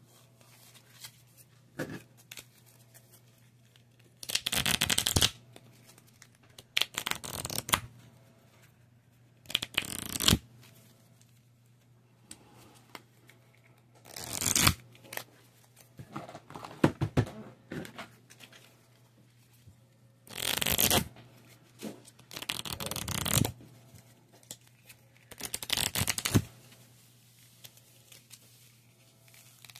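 Stiff playing cards being handled in the hands: fanned, thumbed through and squared into a deck. The card noise comes in about eight separate bursts of roughly a second each, with quiet gaps between.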